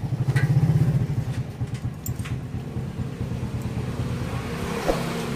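A vehicle engine running with a low pulsing rumble, loudest in the first second and then steady, with a few faint clicks of a hex key on the bolts of a dismantled motorcycle engine case.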